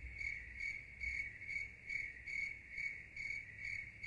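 A cricket chirping in a steady, even pulse of about two to three chirps a second. It is the stock 'crickets' sound effect for an awkward wait.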